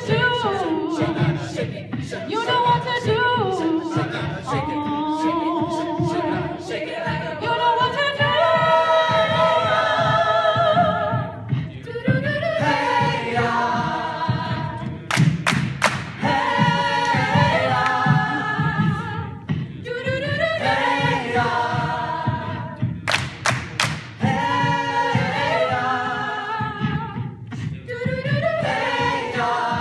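A cappella vocal group singing in close harmony, with a steady rhythmic beat carried by the low voices. A few sharp clicks cut through about halfway and again about two-thirds of the way in.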